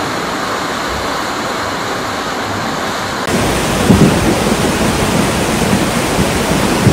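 Rushing floodwater: the steady rush of a swollen, muddy torrent. About three seconds in it cuts to a louder, fuller rush of a flood-swollen mountain river, with a few low thumps.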